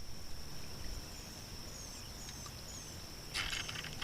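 Insects trilling in one steady high-pitched note, with a bird giving four short falling chirps over it. About three seconds in comes a brief burst of clicking rattle.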